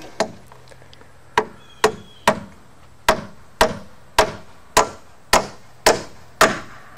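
Hammer driving a nail into a wooden roof truss: about a dozen sharp blows, a bit under two a second, after a single first strike and a short pause.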